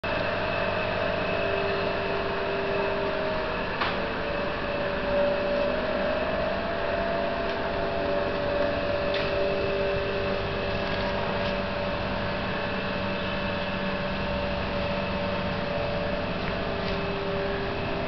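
A steady mechanical hum made of several held tones over a noise haze, with a few faint clicks scattered through it.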